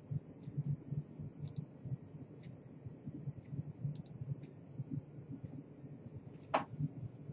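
Computer mouse clicks, a few faint ones and one louder click near the end, over a low pulsing background hum.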